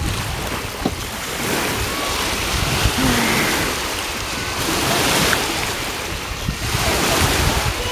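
Wind buffeting the microphone over choppy water, with small waves lapping at the water's edge.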